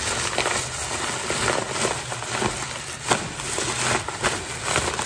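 Thin black plastic bag rustling and crinkling as it is handled and wrapped around a paper-bag parcel, with many small irregular crackles.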